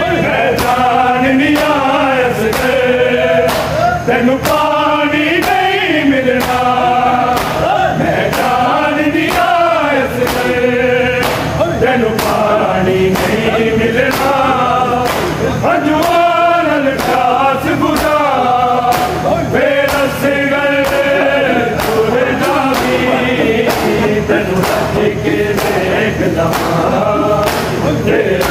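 Men's voices chanting a noha (Shia mourning lament) together, over a steady beat of hands slapping bare chests in matam.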